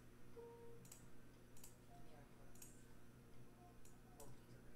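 A computer mouse clicking faintly about five times, irregularly, roughly a second apart, over near silence.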